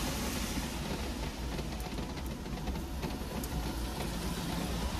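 Light handling noises with a few faint clicks over a steady low hum, as car wiring is worked behind the glove box.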